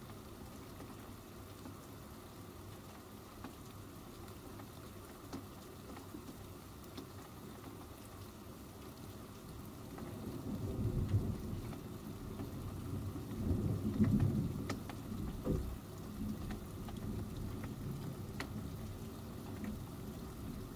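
Steady rain hiss with scattered drop ticks, and distant thunder rumbling low from about halfway through, swelling twice before fading back into the rain.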